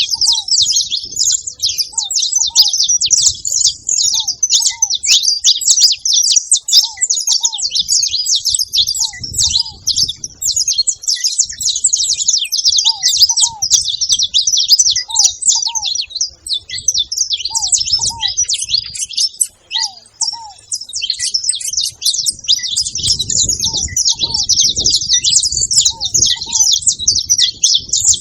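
Saffron finch chirping in a rapid, unbroken high-pitched chatter.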